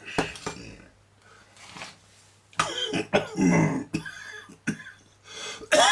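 A man coughing and clearing his throat several times, with a sharp cough right at the start and another near the end, over a steady low electrical hum.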